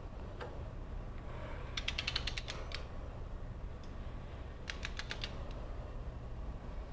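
Ratchet wrench clicking as it is swung back while tightening the head bolts of a General Pump pressure-washer pump. There are two quick runs of clicks, one about two seconds in and one about five seconds in, over a steady low hum.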